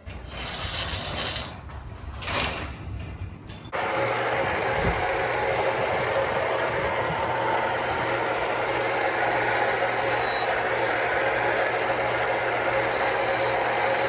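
An engine running steadily, starting abruptly about four seconds in after a few seconds of uneven noise.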